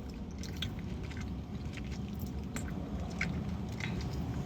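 Chewing chicken wings with the mouth open: a scatter of short smacks and clicks over a low steady hum.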